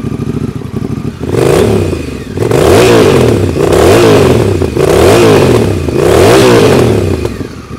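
Honda Rebel 1100's parallel-twin engine through a new Vance & Hines exhaust, idling and then revved in five quick throttle blips about a second apart, each rising and falling in pitch.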